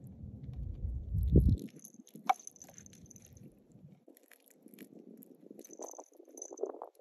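A cat lapping water from a portable pet water bottle, in small wet licks. A low rumble peaks about a second and a half in, and a single sharp click follows a little after two seconds.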